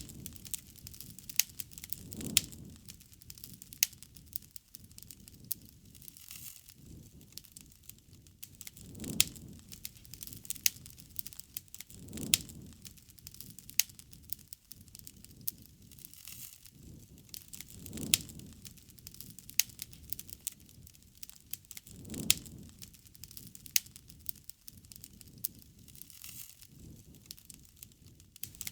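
Wood fire crackling, with sharp pops and snaps throughout and a low rushing swell every few seconds.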